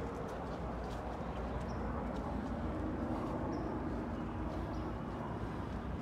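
Outdoor city ambience: a steady hum of street traffic, with a few faint light clicks now and then.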